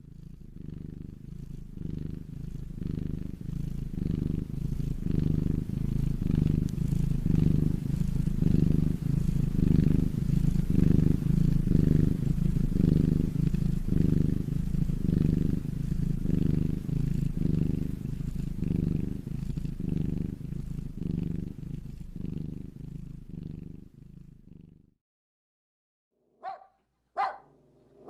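A domestic cat purring close up: a low, rhythmic rumble that swells, then fades and stops about 25 seconds in. A few short, sharp sounds follow near the end.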